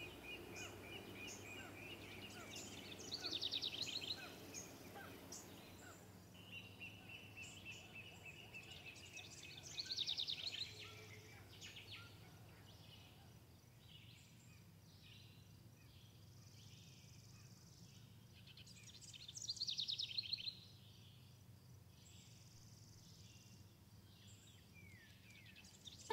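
Outdoor birdsong: a fast, bright trilled song that comes three times, several seconds apart, over scattered high chirps and a faint low hum.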